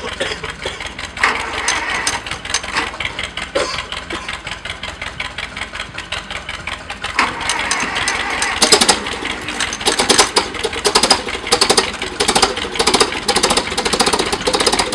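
1945 Allis-Chalmers tractor engine running with a rapid, even train of firing pulses, growing louder and busier about seven seconds in.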